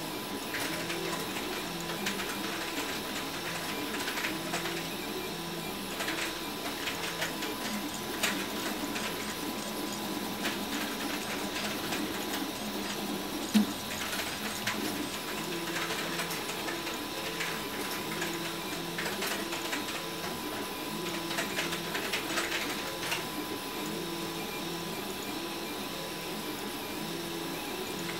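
RepRap Huxley 3D printer mid-print: its stepper motors whir and buzz as the print head and bed move, the pitch stepping up and down every fraction of a second with each move. Light clicks and rattles come through, with one sharp click about halfway through.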